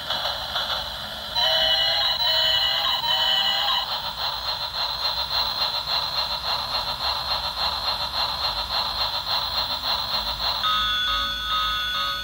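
Battery-operated toy trains running on plastic track, their motors and wheels clicking in a fast, even rhythm under the toys' electronic sound effects. A three-part beeping jingle starts about a second and a half in, then a steady high electronic ringing, which changes to a different set of tones near the end.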